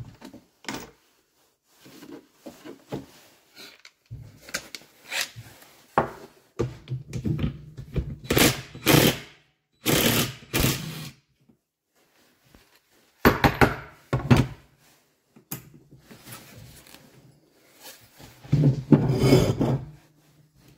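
Tools and metal engine parts knocked and handled while a Malaguti scooter engine is taken apart: a run of separate knocks and clatters, with a few longer, louder bursts of clattering in the middle and near the end.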